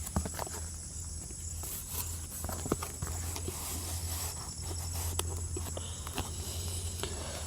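Light scattered taps and clicks of handling as a foam toy airplane's wing is fitted into its body, over a steady low hum and faint insect chirping.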